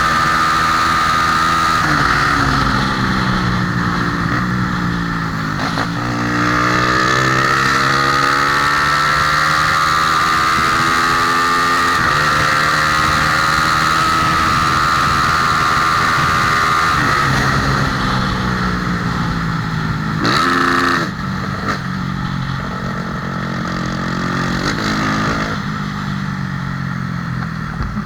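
Single-cylinder four-stroke motorcycle engine, a Honda Tornado bored out to 293 cc, running hard. Its pitch slowly falls and rises several times with changes in engine speed, with a brief sharp change about twenty seconds in.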